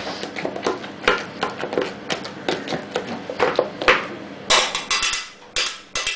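Metal potato masher mashing boiled potatoes in a stainless steel saucepan: irregular knocks of the masher against the pan, several a second, with a few louder knocks near the end.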